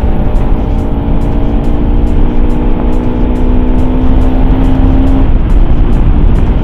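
Motorcycle engine pulling at a steady pitch under hard riding, with heavy wind rushing over the helmet microphone.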